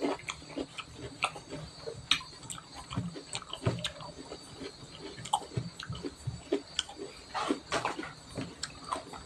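Close-miked sounds of fingers mixing and squeezing cooked rice on a steel plate: a steady run of irregular small wet clicks and squelches.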